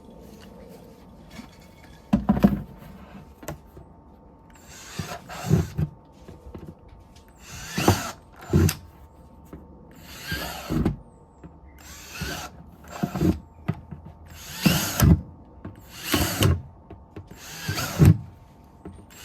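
Power drill boring holes in the bottom of plant pots, in short bursts every second or two.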